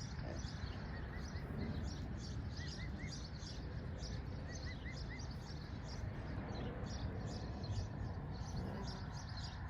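Outdoor farm ambience: small birds chirping throughout over a steady low background noise, with a few clearer chirps in quick runs of three or four.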